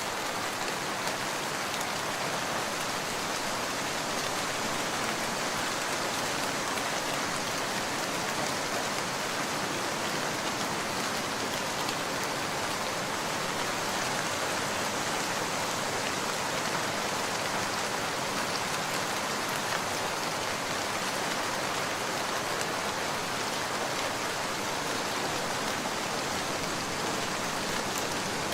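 Steady rain falling, an even hiss with faint scattered drop ticks throughout and no thunder.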